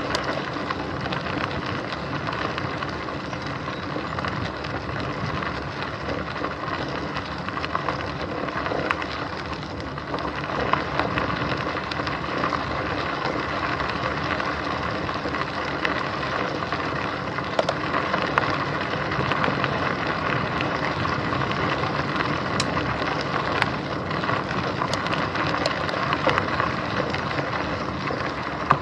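Bicycle tyres rolling over a gravel path: a steady crunching noise scattered with many small clicks and rattles, picked up through a camera mounted on the handlebar stem.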